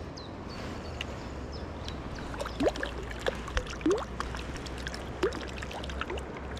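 Small stream running, with a few short plops and gurgles of water in the middle.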